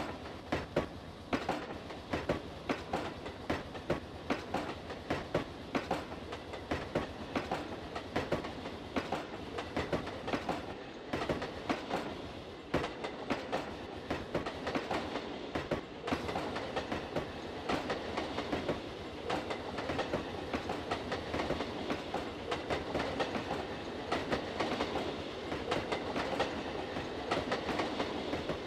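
Iron-ore freight train wagons rolling past, their wheels clicking over the rail joints in a regular clickety-clack over a steady rumble. The clicks are sharpest in the first half and blur into a more even rumble later on.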